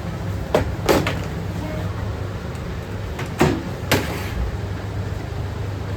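Sharp knocks and clatters from cooking utensils at a ramen stall, two quick pairs about three seconds apart, over a steady low hum.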